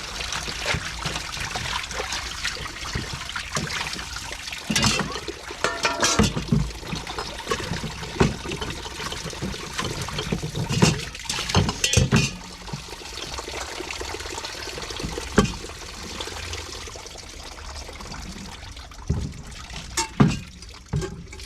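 Water sloshing and trickling in a basin as cast iron dishes are washed by hand, with occasional knocks of the dishes against each other or the basin.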